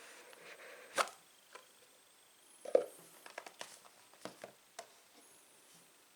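Handling of a smartphone's retail box and packaging: a sharp click about a second in, a louder knock a little under three seconds in, then a quick run of small taps and clicks.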